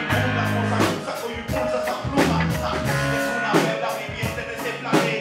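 Rock band music: drum-kit hits over long held bass and guitar notes.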